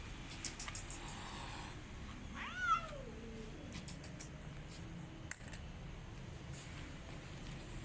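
A domestic cat gives a single drawn-out meow about two and a half seconds in, its pitch rising and then falling, during a tense standoff with another cat. A few faint clicks sound around it.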